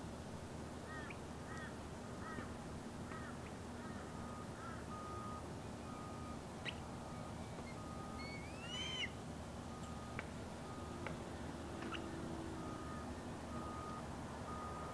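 Osprey calling: about five short whistled chirps in the first few seconds, then a louder single call about nine seconds in.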